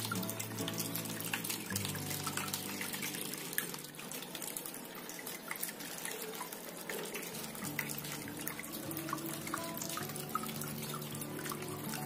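Water falling in thin streams and splashing into the basin of a small cement tabletop waterfall fountain, a steady dense splashing. Soft background music with low held notes runs underneath, changing a couple of times.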